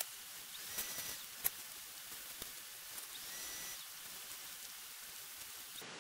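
Faint rustling of tent fabric and a few sharp clicks from the frame as a pop-up dome tent is lifted and opened, over a steady hiss.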